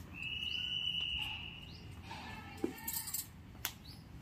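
A high, steady call held for about two seconds, with short rising chirps around it, then two light clicks near the end.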